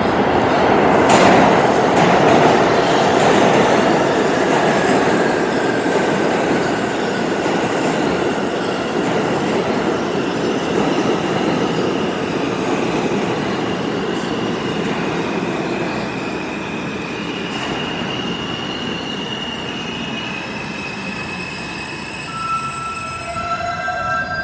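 R160A/B New York subway train running into the station and slowing: loud wheel-on-rail rumble that eases off, with a whine from the propulsion and brakes that shifts in pitch as the train slows.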